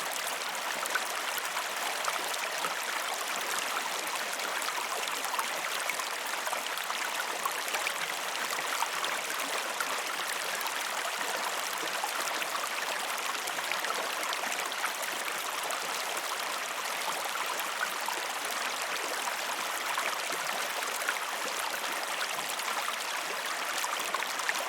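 Small stream running steadily, an even rush of moving water with hardly any deep rumble.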